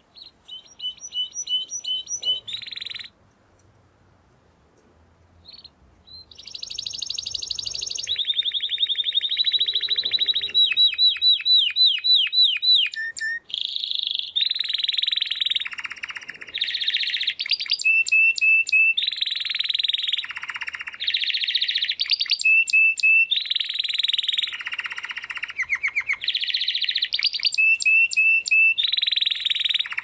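Canary singing in rapid trills, rolls and runs of repeated notes. A short phrase comes first, then a pause of about three seconds, then song without a break from about six seconds in.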